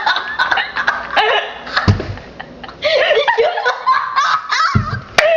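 Several young people laughing and giggling, with a couple of dull thumps, one about two seconds in and one near the end.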